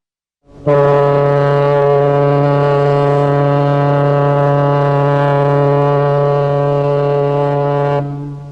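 Ship's horn sounding one long, steady, deep blast of about seven seconds. It starts abruptly about half a second in and fades away near the end.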